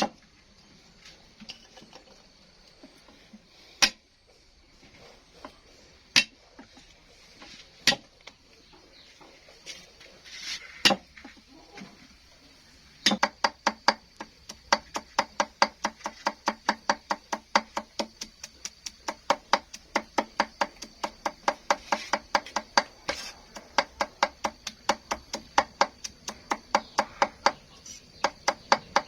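Knife chopping food on a cutting board: a few single chops a couple of seconds apart, then from about halfway a fast, steady run of chops, about three a second.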